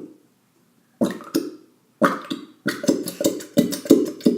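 Bottle of white school glue sputtering and squelching as it is squeezed out into a bowl. Air breaks through the thick glue in a rapid run of short burp-like spurts, starting about a second in and coming about three a second.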